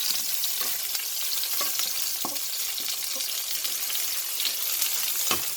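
Onions sizzling in hot cooking oil in a frying pan, with a steady hiss and scattered short knocks of a utensil against the pan as they are stirred; the sharpest knock comes near the end.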